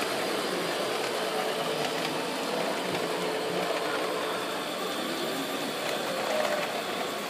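Radio-controlled model truck driving, a steady mechanical running hum.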